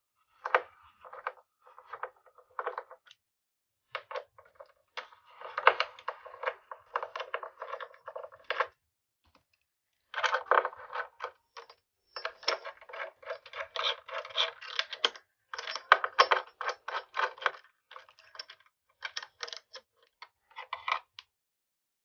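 Crinkling and crackling of a thin cover sheet being peeled off a PS5 motherboard and handled, in irregular clusters of small crackles with short pauses.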